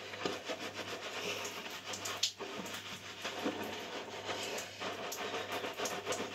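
Fingers scrubbing shampoo lather into wet hair and scalp: a continuous wet squishing and rubbing with many small irregular crackles, over a low steady hum.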